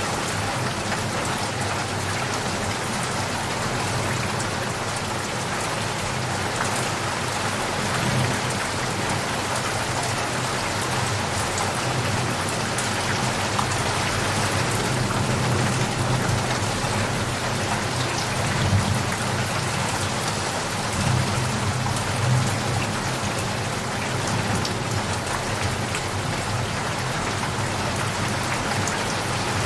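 Steady heavy rain falling on surfaces, with several low rumbles of thunder swelling and fading through the second half.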